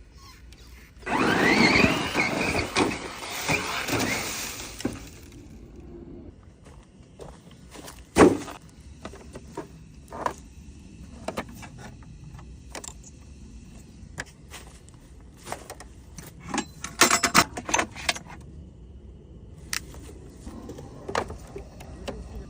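Radio-controlled scale rock crawler driving: a whine from its electric motor and gears rises in pitch for about four seconds near the start. Scattered knocks and clatters follow, with a loud knock about eight seconds in and a cluster of sharp clatters around seventeen seconds.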